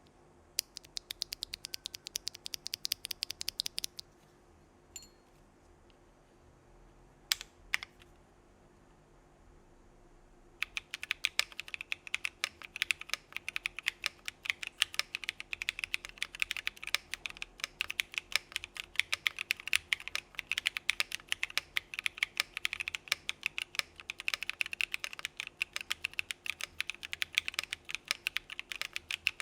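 Mechanical keyboard with KTT Macaron Orange tactile switches being typed on. A short fast run of keystrokes, a few single presses, then steady fast typing from about a third of the way in.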